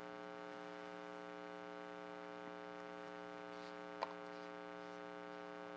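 Steady electrical mains hum in the sound system, a low even buzz with many overtones, broken once about four seconds in by a single short click.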